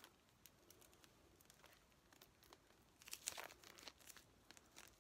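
Faint crinkling of the plastic shrink-wrap on a CD album as it is handled and cut open with scissors, louder for a moment about three seconds in.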